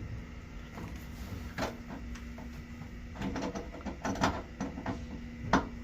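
Slotted sleeve screw being tightened through a closet panel with a screwdriver: scattered clicks and scrapes of the driver in the slot, with a cluster of knocks a little past halfway and a sharp knock near the end.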